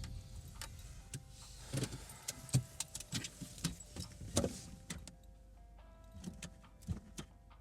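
A car's low engine hum dies away, then a run of clicks, knocks and thumps from the car, loudest in the middle, under quiet sustained music notes.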